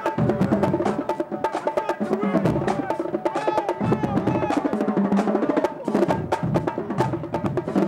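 Marching band drumline playing a cadence on snare drums and multi-tenor drums (quints): a dense, continuous stream of stick strokes.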